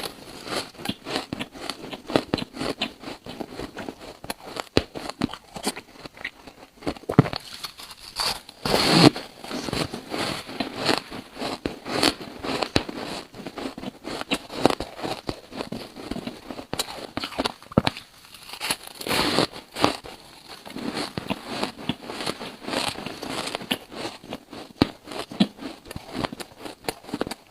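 Biting and chewing squeaky yellow buckwheat ice: a steady run of crisp crackles and crunches, with heavier bites about nine seconds in and again around nineteen to twenty seconds.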